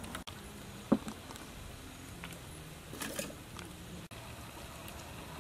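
Water boiling in a large aluminium pot, a steady bubbling hiss, with a single sharp clink about a second in.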